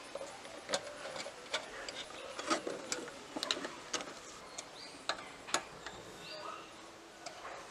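Light clicks and taps of hand-tool work at an uneven pace, about one or two a second, a few with a short ring.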